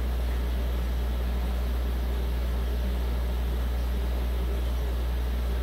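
Steady low electrical hum from running aquarium equipment, with a faint even hiss over it and no change in level.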